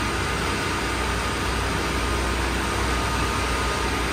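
A steady, unchanging engine drone under a constant hiss.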